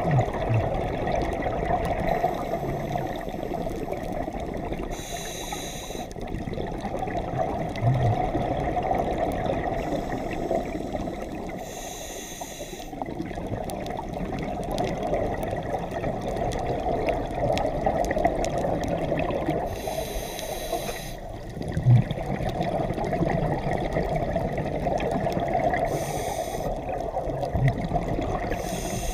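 Underwater scuba breathing: a steady rush of water noise, broken every six to eight seconds by a short hissing gush of exhaled bubbles from the diver's regulator, with a couple of dull knocks.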